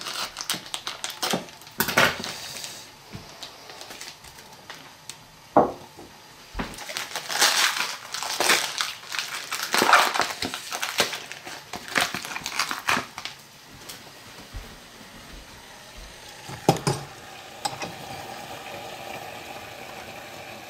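Plastic and paper food wrapping crinkling and rustling as packages are handled and unwrapped, with a few sharp crackles. Near the end it gives way to a faint steady hum.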